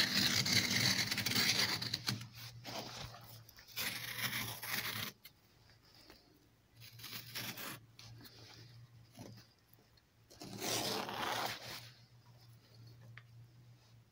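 A blade slicing through thick cowhide, the leather rasping and tearing as a thin lace strip is cut free. The scraping is loudest for the first few seconds, followed by two shorter scrapes later.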